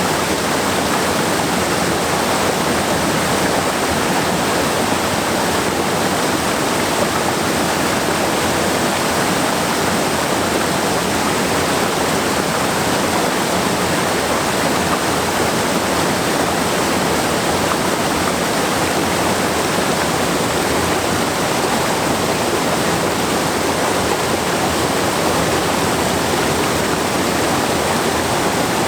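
A waterfall's falling water rushing steadily, an even, unbroken roar of water.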